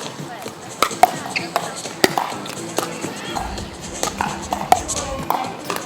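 Background music and indistinct voices, with frequent sharp taps and clacks scattered irregularly throughout.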